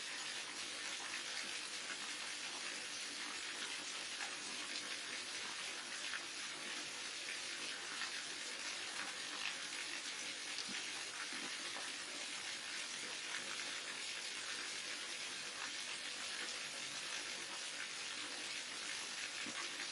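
Steady rush and splash of water from a waterfall, falling continuously without change.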